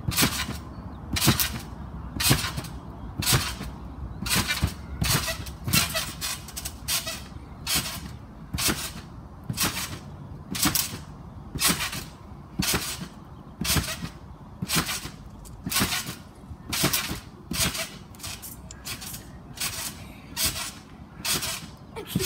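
A child bouncing on a garden trampoline, the mat and springs giving a sharp noise with each bounce in a steady rhythm, about two a second.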